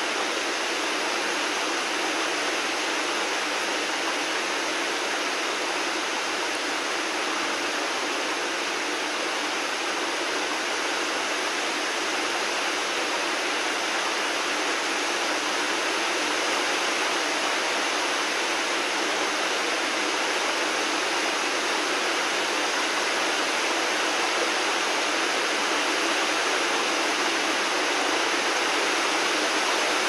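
Steady rain falling, an even hiss that grows slightly louder toward the end.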